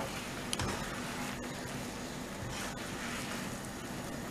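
Thick Manchurian sauce sizzling steadily in a hot pan while it is stirred with a spoon, with a light click of the spoon about half a second in.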